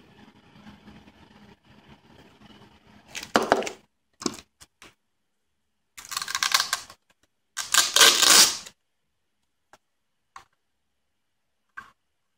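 Packaging and a small plastic gadget being handled: several short bursts of rustling and crinkling, the loudest a little after the middle, then a few faint clicks.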